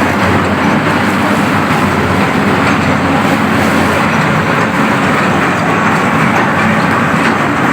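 Tata Hitachi excavator running steadily with a drum cutter attachment working, a loud, even mechanical grinding noise without pause.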